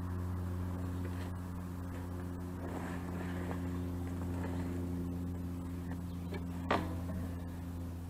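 Steady low mechanical hum throughout, with scraping and one sharp knock about two-thirds of the way in as the old water heater tank is rolled up out of its box.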